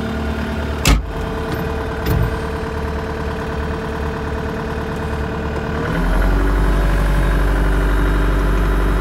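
Skid steer engine running steadily, heard from inside the enclosed cab, with a sharp knock about a second in. About six seconds in the engine note deepens and grows louder, then holds at that higher level.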